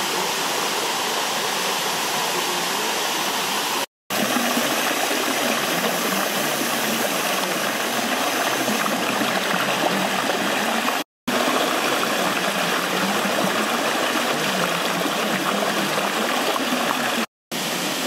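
Water of Bua Tong waterfall rushing steadily over its limestone tiers and through shallow rapids. The rush drops out for a split second three times.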